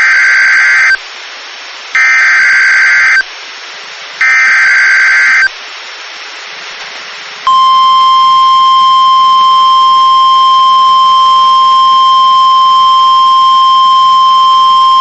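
NOAA Weather Radio emergency alert: three roughly one-second bursts of screechy SAME digital header data, about a second apart. About 7.5 seconds in, the steady single-pitch warning alarm tone begins and holds. The tone signals that a warning, here a severe thunderstorm warning, follows.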